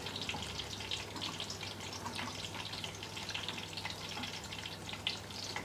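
Aubergine slices frying in plenty of hot oil in a steel pan: a steady sizzle with dense, fine crackling.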